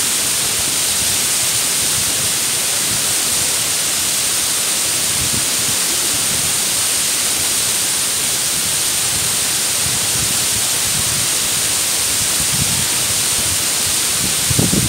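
Mumlava waterfall pouring over rock into its plunge pool: a steady, even rush of falling water. A few brief low bumps come just before the end.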